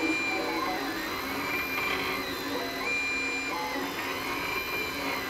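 JGaurora A5 3D printer printing its first layer: the stepper motors whine in tones that rise, hold and fall with each move of the print head, about once a second, over a steady whir.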